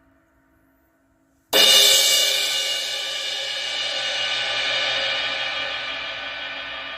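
18-inch Omete Mercury crash cymbal struck once about a second and a half in, then ringing out with a long, slowly fading wash.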